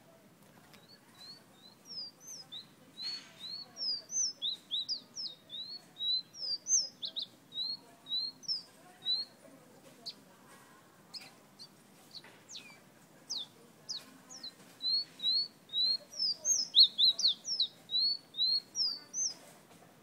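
Caged 'fire red' songbird whistling: a long run of quick, short, high whistled notes, some sliding up and some down, then a few scattered notes, then a second dense run near the end.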